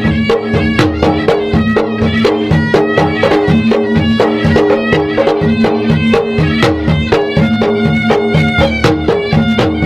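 Maros traditional gendang drums beaten in a fast, dense, steady rhythm, with a reedy wind instrument playing a melody over a steady held tone.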